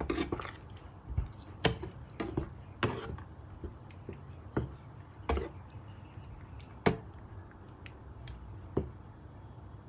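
Wooden spatula stirring a thick cream sauce in a nonstick frying pan: soft wet squishing broken by irregular sharp knocks and scrapes of the spatula against the pan, the loudest about a second and a half in and again about seven seconds in.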